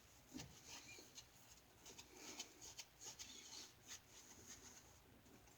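Faint, irregular scratchy swishes of a boar-bristle shaving brush working soap lather over the face.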